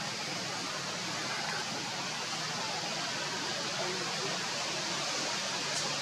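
Steady, even outdoor background hiss, strongest in the high register, with no distinct calls or knocks.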